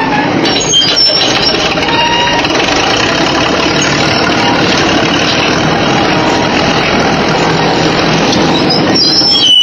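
Bulldozer running under load, its diesel engine and machinery making a loud, dense, steady noise, with brief high squeals about half a second in and again near the end.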